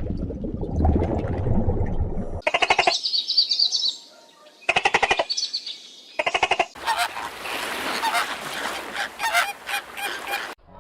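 Three short, buzzy animal calls, then several seconds of noisy rustling with scattered sharp clicks.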